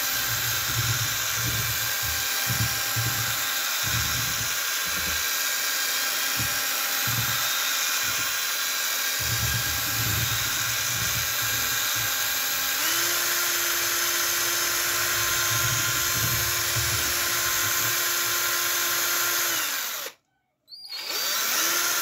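Cordless drill-driver spinning a whisk attachment through liquid jelly mixture in a plastic bowl: a steady motor whine over the churn of the whisk in the liquid. About 13 seconds in the motor's tone drops to a lower pitch; near the end the drill stops, runs again briefly, and stops.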